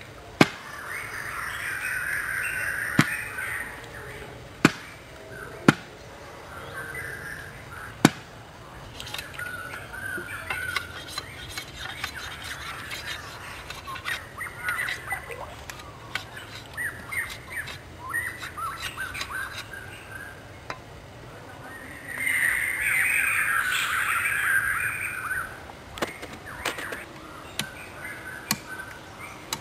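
Sharp knocks of a large knife blade chopping and shaving green bamboo, single strokes spaced a second or more apart in the first several seconds and again near the end. Birds chirp and call throughout, loudest twice.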